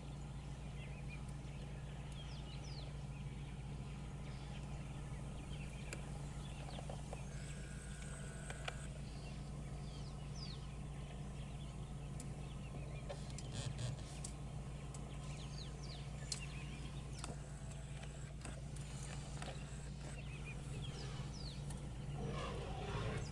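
Scattered short, high chirping bird calls over a steady low hum, with a few faint clicks.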